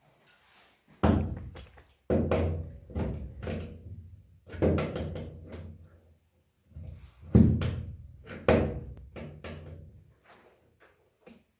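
Repeated heavy knocks and thuds from a wooden interior door and its metal hinge as the hinge leaf is forced with a tool to bend it, in two bursts of several blows.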